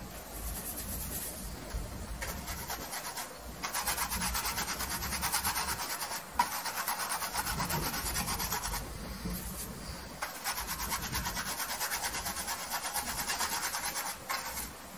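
Bristle paintbrush scrubbing oil paint onto a stretched canvas in quick back-and-forth strokes: a dry, scratchy rubbing that comes in stretches of a few seconds with short pauses between. There is one brief knock about halfway through.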